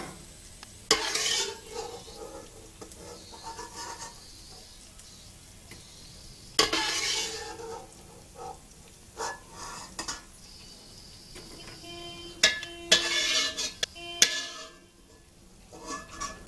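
A cooking utensil scraping and clinking against a pan as peanuts are stirred. It comes in several scraping bursts, about a second in, about seven seconds in and again near the end, with sharp clicks between them. A few strokes ring briefly near the end.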